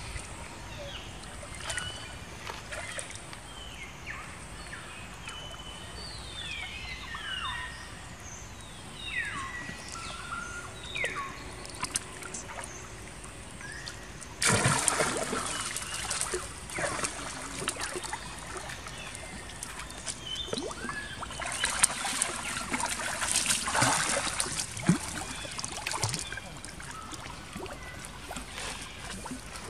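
A young macaque crying in a string of short, high squeals that fall in pitch, then loud splashing as macaques scuffle and swim in pond water, starting suddenly about halfway through and coming again in a second spell a few seconds later.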